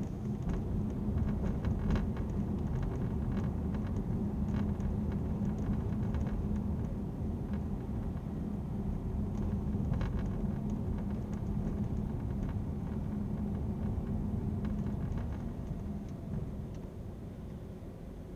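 Road and drivetrain drone inside a moving car's cabin, with scattered faint clicks and rattles: the abnormal noise from the rear shelf area. The drone eases off near the end.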